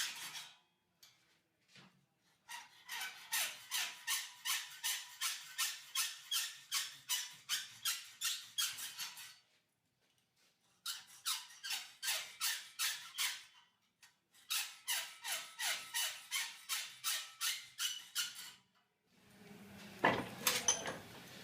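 Hacksaw cutting steel cable tray in even back-and-forth strokes, about three a second, in three runs with short pauses between them. A brief clatter comes near the end.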